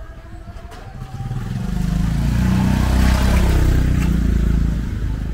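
A small motorcycle passing close by, its engine building up, loudest about three seconds in, then fading away.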